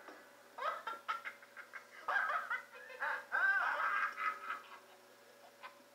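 A high-pitched voice giggling in a string of short rising-and-falling laughs over background music, then dying away near the end.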